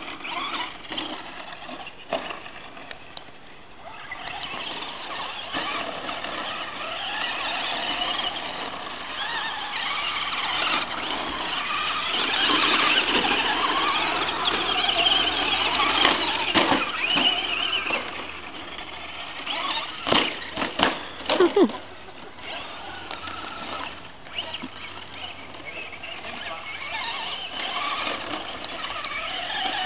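Brushless electric motors and geartrains of Traxxas Slash RC short-course trucks whining as they race on a dirt track, the pitch rising and falling as they speed up and slow down. A few sharp knocks come past the middle.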